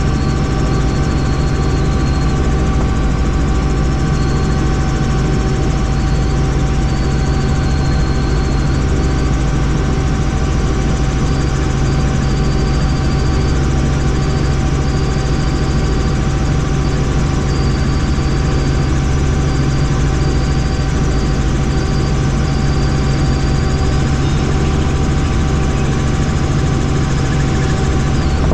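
Helicopter in flight: a steady, loud drone of rotor and engine, with a constant whine over it and no change in pitch.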